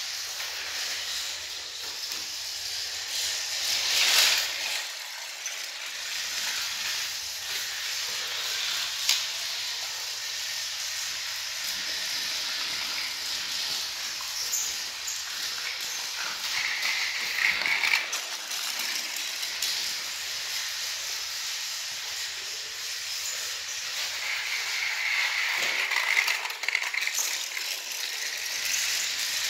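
Battery-powered toy train engine running along plastic track, its small motor giving a steady whir, briefly louder about four seconds in.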